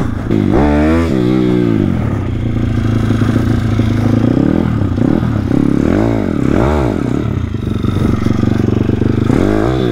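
YCF 150 SM pit bike's single-cylinder four-stroke engine running at idle between sharp throttle blips: one hard rev about half a second in, short blips around five, six and seven seconds in, and another near the end. These are snaps of the throttle to lift the front wheel for a wheelie.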